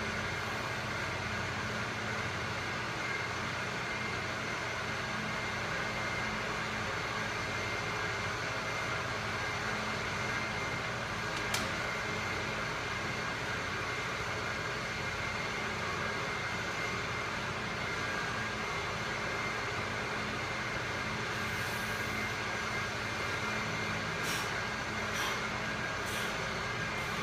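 Steady mechanical hum and hiss of room background noise, like ventilation, with a single sharp click near the middle and a few faint clicks near the end.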